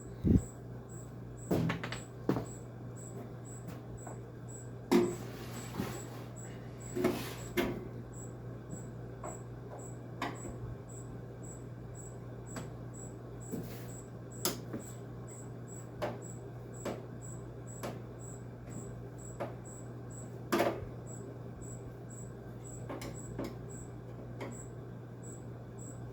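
Scattered metal clicks, taps and a few short scrapes from a hand screwdriver working rusty screws out of an old window air conditioner's sheet-metal cabinet, over a steady low hum.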